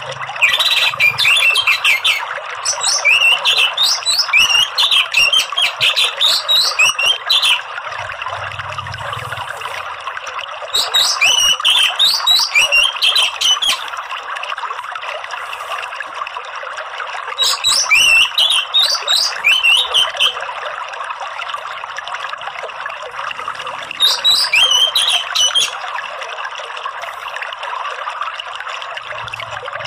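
Orange-headed thrush (anis merah) singing its rapid twittering 'ngeriwik' song in five bouts of a few seconds each, made of quick rising chirps. Under the song runs a steady rush of flowing water.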